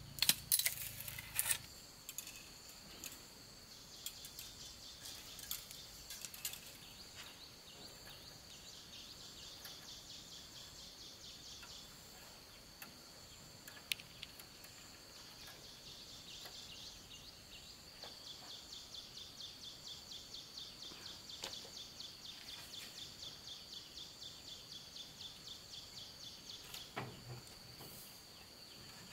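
Faint, steady chirring of insects, a fast even pulsing trill high in pitch, which pulses more strongly in the second half. In the first second or so, a few strokes of a hacksaw cutting green bamboo; a couple of isolated clicks and a dull knock near the end.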